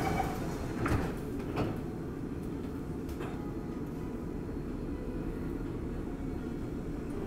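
Downtown Line MRT train's door-closing warning tone cutting off, then the sliding doors shutting with two knocks about a second and a second and a half in. After that, the steady low hum of the train standing at the platform.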